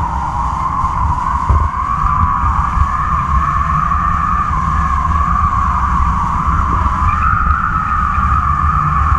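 Wind on a camera rigged on a kite's taut flying lines: a steady whistling hum that wavers slightly in pitch, over low wind buffeting.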